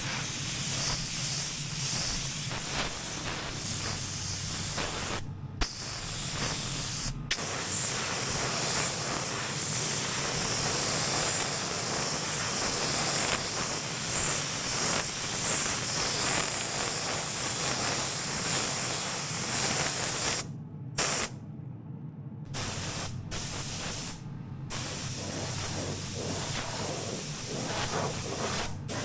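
Compressed-air gravity-feed paint spray gun spraying black paint: a steady hiss of air and atomised paint. It stops briefly a few times as the trigger is let go, once about five seconds in, again about seven seconds in, and several times about three-quarters of the way through.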